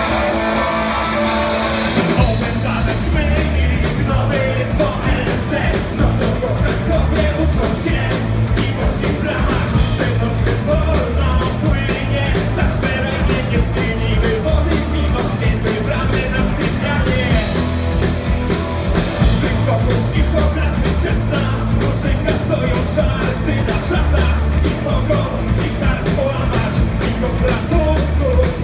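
Punk rock band playing live: electric guitar, bass and drums with a male lead vocal. The first couple of seconds are thinner, then the bass and drums come in fully.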